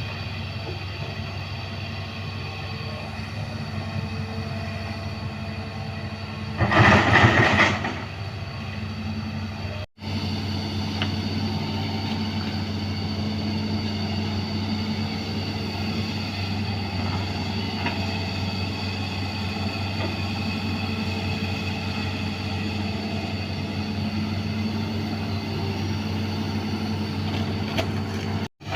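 Hydraulic excavator's diesel engine running steadily, with a loud rushing burst of noise lasting about a second and a half, about seven seconds in.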